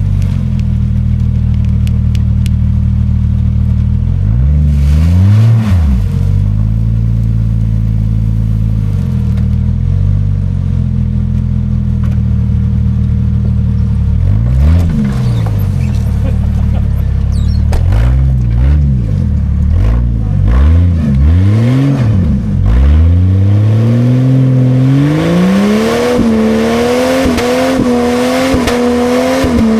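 Old Jeep Cherokee engine being revved hard: several short rev blips that rise and fall, then about 23 s in it climbs to high revs and is held there, its pitch wavering slightly.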